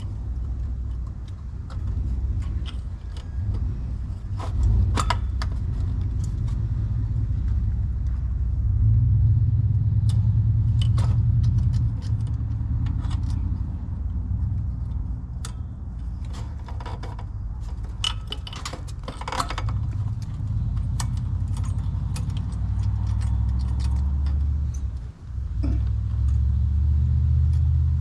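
Small metallic clicks and clinks of hand tools and hardware working the condensing unit's electrical connections, over a steady, wavering low rumble.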